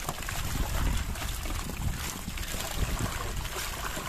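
Wind buffeting the microphone over water sloshing around a small fishing boat, with scattered light clicks and patters as fish are scooped out of a mesh net with a woven basket.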